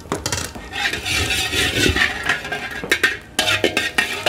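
Food sizzling in hot oil in a wok, starting about a second in, with sharp clinks of a metal ladle against the wok.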